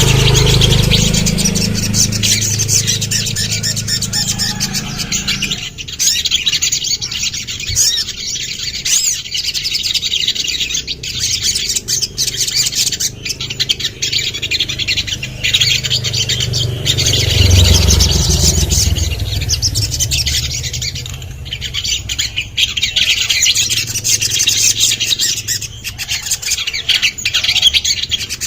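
Ruby-cheeked sunbird (sogon) singing a continuous run of rapid, high chirps and trills. A low rumble sits under the song for the first five seconds and again for a few seconds past the middle.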